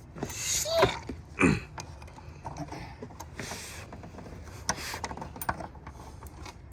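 Scattered handling noises from hands and tools working on parts in an engine bay: a few clicks and knocks, two short squeaks in the first second and a half, and a brief hiss about three and a half seconds in.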